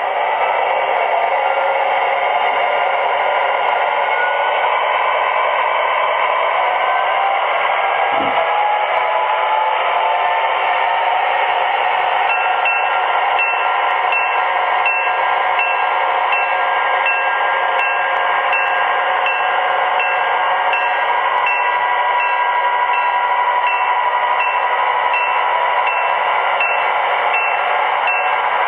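Sound systems of four MTH O-gauge EMD GP9 model diesels working hard on a heavy train, their loudspeaker diesel rumble mixed with motor and wheel noise. From about twelve seconds in, a locomotive bell rings steadily about twice a second.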